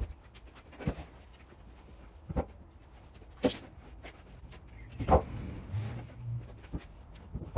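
Sharp knocks and thuds of green oak timbers being handled and dry-fitted, about five irregular knocks with the loudest about five seconds in, followed by a short low hum.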